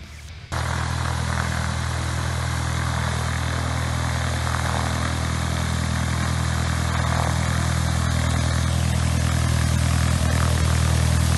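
Piston engine and propeller of a single-engine Cessna light aircraft running on the ground: a steady low drone that starts suddenly about half a second in and grows gradually louder.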